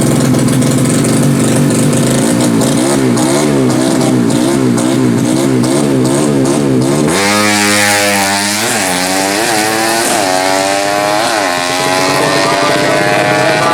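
Tuned four-stroke underbone drag bike revving at the line with quick throttle blips about twice a second. About seven seconds in it launches and accelerates hard, the engine pitch climbing and dropping back at each of several gear changes.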